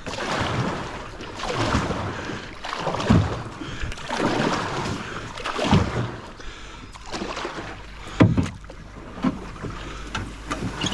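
Water sloshing and splashing in a series of uneven strokes, about one every second or two.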